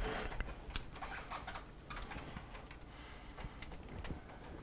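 Scattered light clicks and taps of screws and a screwdriver being handled against the refrigerator's plastic back panel and liner, with no power tool running.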